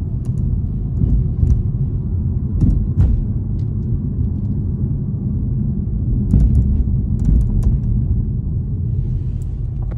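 Steady road and engine rumble inside a BMW G20 3 Series cabin on the move, with short, irregular creaks and ticks from the headliner around the sunroof. The noises come from the headliner's plastic clips, which have play and rub against their plastic mounts.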